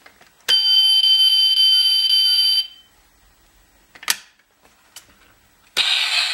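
Sound chip of a die-cast Toyota Tundra toy model, playing through its small speaker: a steady, piercing electronic tone for about two seconds. Two short clicks follow as the toy is handled, and a harsh, noisy sound effect starts near the end.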